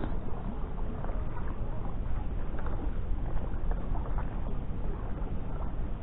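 Steady low rumble of wind on the microphone, with no engine tone or voice in it.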